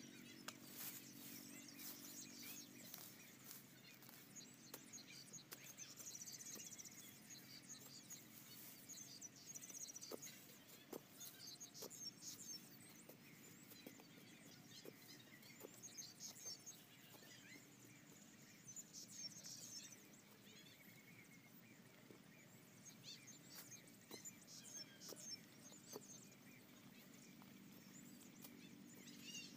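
Faint, scattered knocks and scrapes of a long metal digging bar working into dry soil and grass roots at a rice-field crab burrow, with high chirping in the background.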